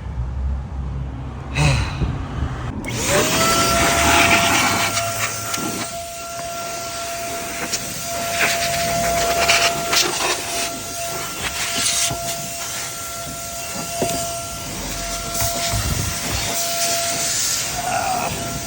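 Small handheld electric air blower switched on about three seconds in, a steady motor whine over loud rushing air, blowing out dirt and debris from behind the vehicle's interior trim panels.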